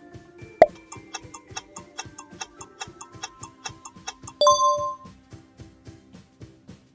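Background music with a steady beat; a short pop about half a second in, then fast clock-like ticking, about four ticks a second, ending in a loud bell-like ding about four and a half seconds in, typical of a quiz countdown timer running out.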